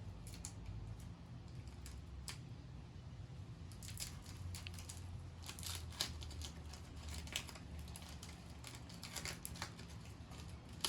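Pokémon booster pack's foil wrapper crinkling and tearing as it is opened and the cards handled: scattered sharp crackles and clicks, busiest in the second half, over a low steady hum.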